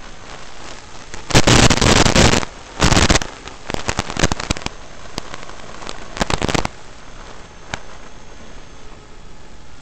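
Steady hiss of an analog FPV video receiver's audio channel, broken by a long, loud burst of crackling static about a second and a half in and several shorter crackling bursts over the next five seconds, as the video link breaks up.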